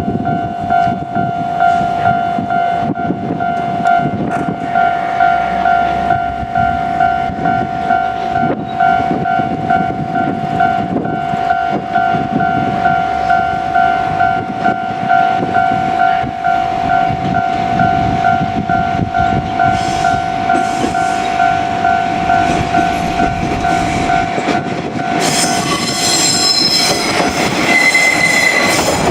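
Japanese level-crossing alarm sounding a rapid, evenly repeating electronic ding while a JR Kyushu KiHa 47 diesel railcar set rumbles past over the rails. The alarm stops near the end, and a high-pitched wheel squeal follows.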